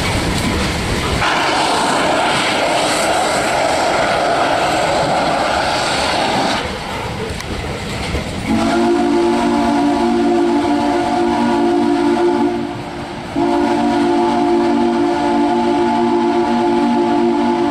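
Freight cars rumbling past on the rails. Then a locomotive's multi-note chime whistle sounds two long blasts, each a steady chord: the first about eight seconds in, the second a second after it ends and still going at the close.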